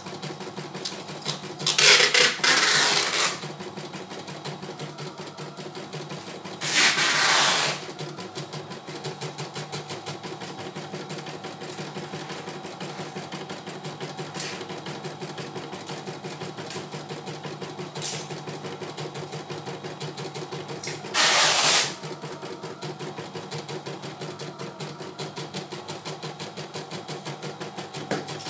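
CNY E900 computerized embroidery machine stitching steadily, its needle working in a rapid, even rhythm as it fills a design. Three times a louder, noisier burst of about a second rises over the stitching.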